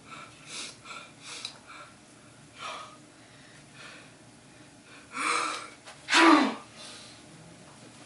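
A man's sneeze building up: a few short catching breaths, a louder gasping intake about five seconds in, then one loud sneeze just after six seconds.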